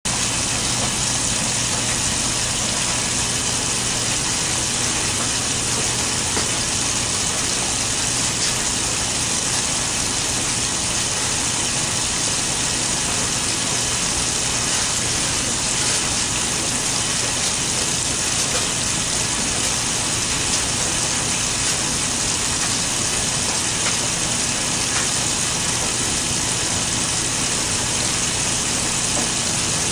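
Washing machine running a wash cycle on a load of towels: a steady motor hum under an even, constant rush of noise.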